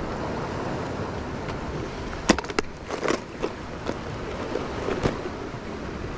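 Steady wash of surf and wind, with a few sharp clicks and rustles from handling small fishing tackle: a quick cluster about two seconds in and single ones near three and five seconds in.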